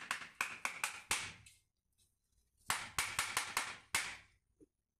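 Knife blade being driven through raw mutton bone by blows of a wooden mallet on its spine, on a plastic cutting board: sharp knocks at about four a second, in two runs with a pause of about a second between them.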